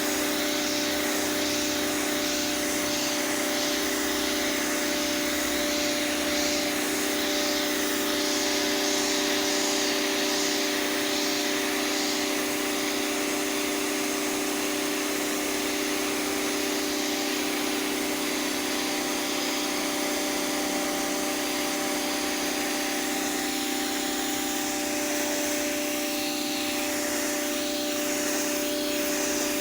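Pressure washer running steadily, its motor and pump humming under the hiss of the water jet.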